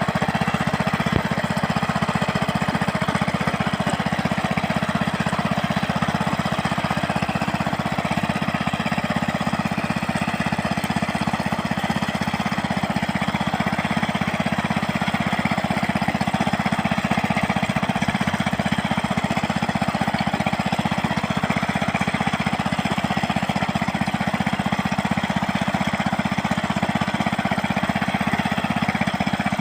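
Small engine of a mini rice-field plough running steadily with a fast, even firing beat.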